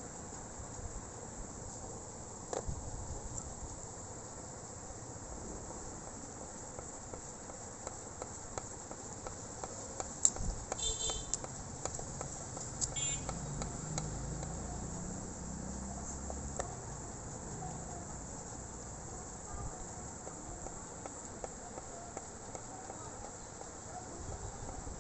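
Steady high-pitched insect chirring in the background, with a few short pitched calls about ten and thirteen seconds in.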